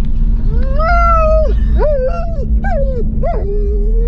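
German Shepherd whining in the car: one long high whine that rises and falls, four shorter whines, then a long, steady, lower whine near the end. Beneath it runs the steady low hum of the car.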